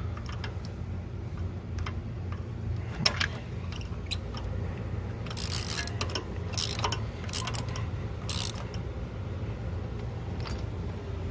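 Socket ratchet clicking in short runs as a spark plug is turned in, with scattered metallic tool clicks, over a steady low hum.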